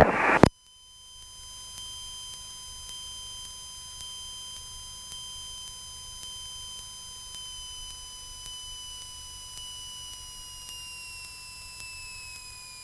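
Steady electronic tones replace the cockpit audio when the sound cuts off abruptly: a plain tone near 1 kHz with a higher whistle above it that slowly falls in pitch near the end. There is no engine or voices.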